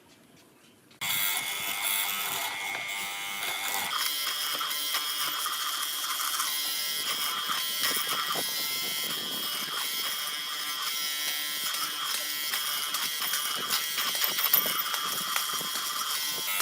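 A small electric power tool starts about a second in and runs steadily with a high-pitched motor buzz. Its sound shifts slightly about four seconds in.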